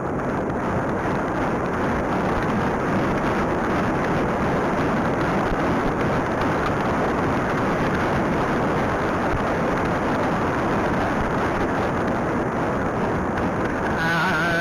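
Wind rushing over the microphone of a camera worn by a rider on a horse moving at speed: a steady, loud noise.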